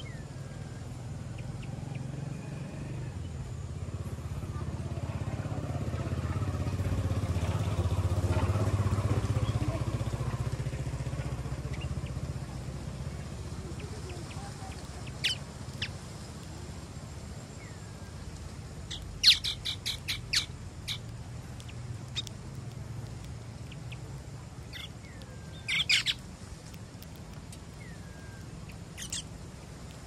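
Small birds chirping in short, sharp calls, scattered through, with a quick loud cluster about two-thirds of the way in and another shortly after. Under the first half, the low engine rumble of a passing vehicle swells and fades.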